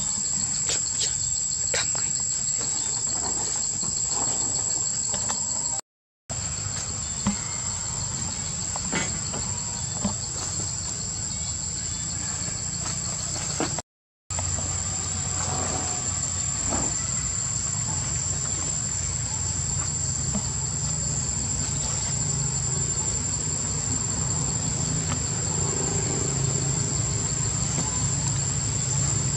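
A steady, high-pitched insect chorus drones on throughout, with a low hum underneath that grows stronger in the second half. The sound cuts out completely twice, each time for a fraction of a second.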